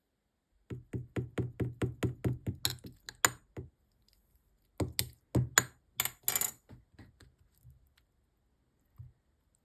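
Air bubbles popping in a bubble-filled squishy material: a quick run of sharp clicks and crackles for a few seconds, then a second cluster that trails off, and one last pop near the end.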